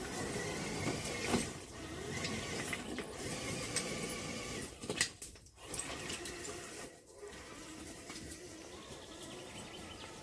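Electric motor and gearbox of a radio-controlled rock crawler whining as it drives over stone, with a few knocks.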